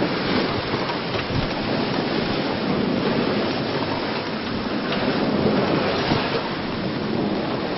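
Steady rush of water along a sailboat's hull as it sails at speed, with wind buffeting the microphone.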